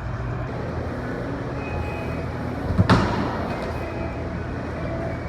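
A steady low hum with one sharp knock about three seconds in.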